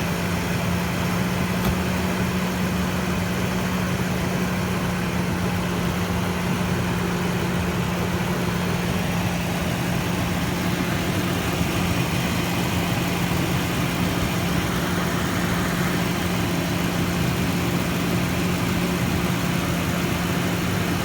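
Ford 5.0-litre V8 engine of a 1999 Mercury Mountaineer idling steadily, running during a vacuum leak test through the power brake booster hose.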